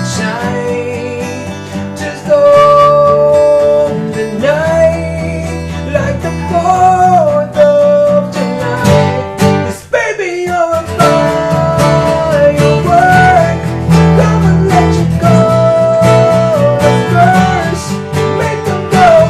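Music: strummed acoustic guitar under a held melody line, with a brief break about ten seconds in.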